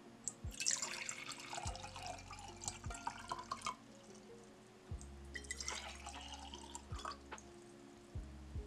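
Water poured from a plastic bottle into empty glass jars: a splashing pour of about three seconds into the first jar, then a shorter pour into the second about five seconds in.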